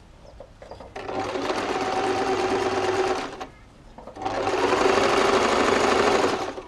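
Domestic sewing machine stitching lace trim onto fabric: two runs of about two and a half seconds each at a steady speed, with a short pause between.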